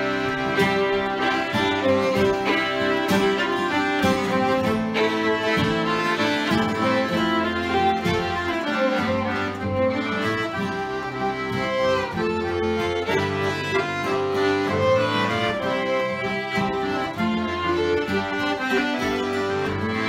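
Folk trio playing a tune together: fiddle carrying the melody over a button accordion and a strummed acoustic guitar.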